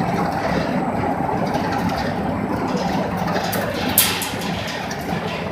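Automatic reinforcement-cage spot welding machine running with a steady mechanical din, and a sharp snap about four seconds in.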